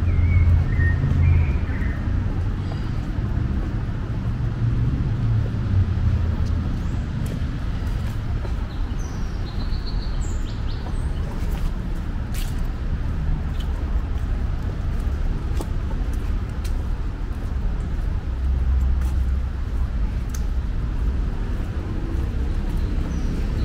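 City street ambience: a steady low rumble of traffic, with a few bird chirps near the start and again around ten seconds in, and scattered light ticks.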